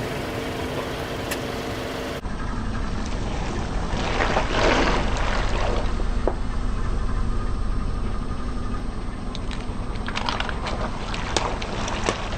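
Car engine running low and steady under tyres rolling. About four seconds in there is a swell of rustling noise, and near the end comes a run of sharp cracks and crackles as objects are crushed under the wheels.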